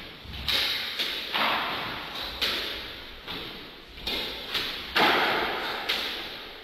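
Squash ball being struck with rackets and hitting the court walls in a rally: about ten sharp smacks, each ringing on in the court's echo.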